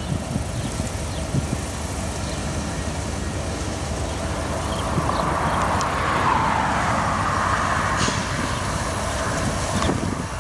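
Union Pacific diesel freight locomotives approaching with a steady low engine rumble, with a broad rushing noise from the moving train swelling about halfway through. A car passes on the road near the end.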